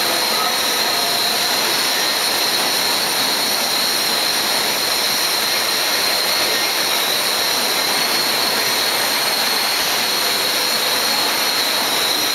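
Billet continuous casting machine running: a steady loud hiss with a thin high whine over it, as the rolls draw out a glowing billet and cooling water turns to steam on the hot strand.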